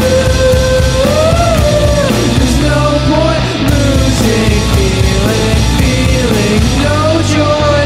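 Loud punk rock song: drums, distorted guitars and bass, with a melody line that bends up and down in pitch.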